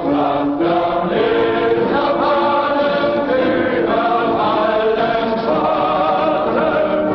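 Choral music: a choir singing slow, sustained chords whose notes step from one pitch to the next.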